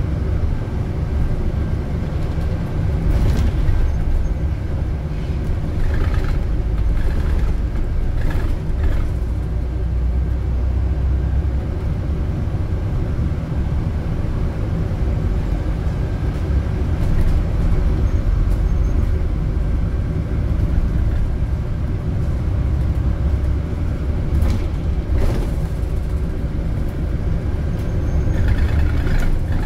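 A car driving, with a steady low rumble of engine and tyre noise. A few brief knocks break through it.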